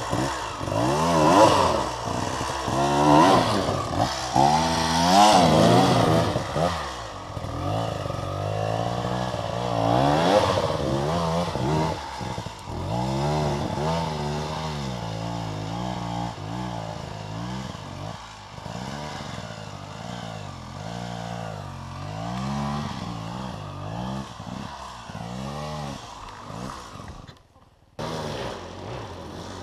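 Enduro dirt-bike engines revving hard in repeated bursts, the pitch rising and falling as the bikes climb a steep, loose forest slope. The sound drops out for a moment near the end.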